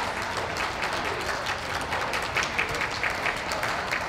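Crowd of spectators applauding steadily: many hands clapping at once.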